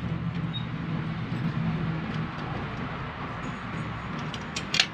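Steady low hum and rushing background noise, with a cluster of sharp metallic clicks near the end as a car power window regulator's steel rail and cable are handled.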